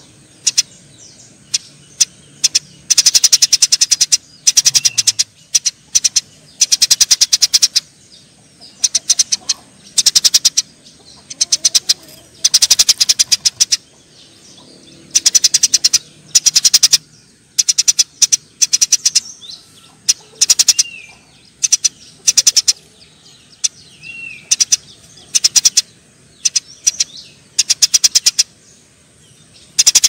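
Eurasian tree sparrows chattering harshly: rapid strings of sharp chirps in bursts of about a second, again and again, the agitated chatter of sparrows fighting.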